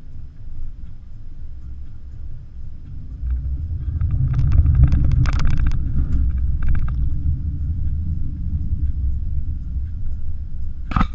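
Porsche Macan driving off-road, heard from inside the cabin: a low rumble that swells about four seconds in as it drives through a puddle, with a burst of splashing as mud and water spray against the body and windscreen.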